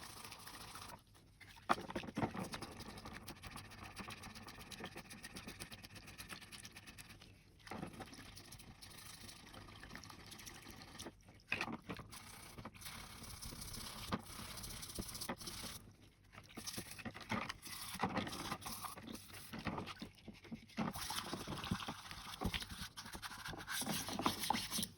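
Toothbrush scrubbing plastic mouse parts in soapy water: a wet, scratchy brushing that stops briefly several times.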